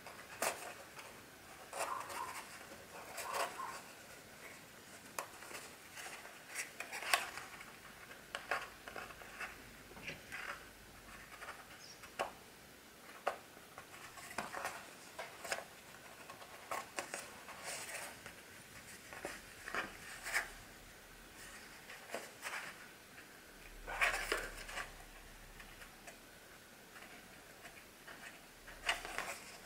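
Irregular light clicks, taps and scrapes of hands working a grey board book cover and linen tape over a stack of paper signatures, a blue hand tool pressing and rubbing at the tape. A somewhat louder scrape comes about three-quarters of the way through.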